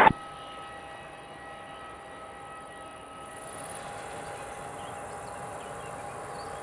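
Boeing 737-800's jet engines idling at a distance with a steady whine as the airliner taxis after landing. The higher notes of the whine drop away about three seconds in, leaving one steady tone.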